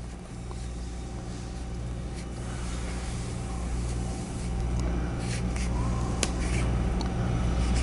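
A Sherline 3-jaw scroll chuck turned by hand to run its jaws fully open, giving faint metal rubbing and a few light clicks over a steady low hum. The rubbing slowly grows louder, and the clicks fall in the second half.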